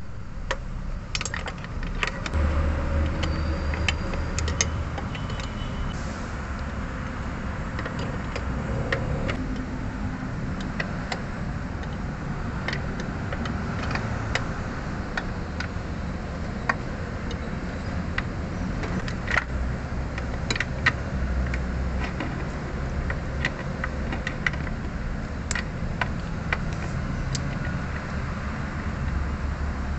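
Scattered metallic clicks and clinks of a wrench working the brake line fittings on a brake master cylinder, over a steady low background rumble.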